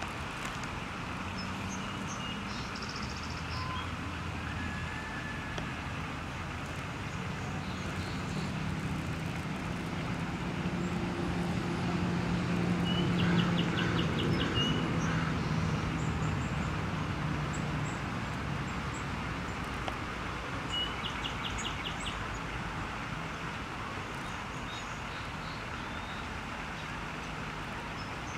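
Low engine hum of passing motor traffic, swelling to its loudest about halfway through and fading again. Faint high bird chirps and a couple of short rapid trills sound over it.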